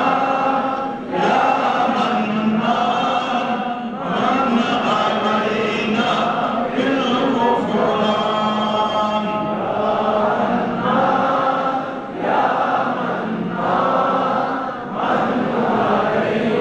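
A group of men's voices chanting together in devotional phrases of a few seconds each, with brief dips between phrases.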